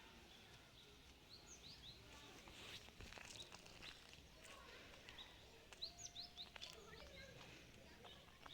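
Faint birds chirping, in quick high runs of three or four notes twice, over a quiet outdoor background with a few light clicks.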